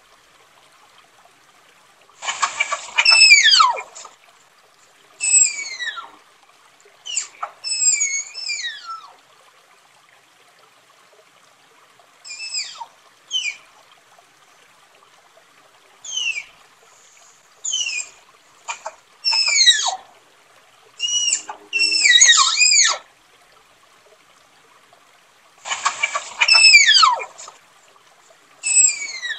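Tapir calling: high-pitched whistling squeals, each sliding down in pitch, given in groups of one to several every couple of seconds with short quiet gaps between.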